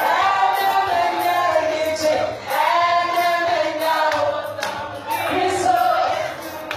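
A woman singing a gospel song live into a handheld microphone over amplified backing music, her voice gliding in long held phrases.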